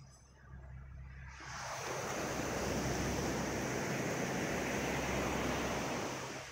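Ocean surf breaking on a gravel beach: the wash of a wave swells up about a second and a half in, holds, and falls away near the end.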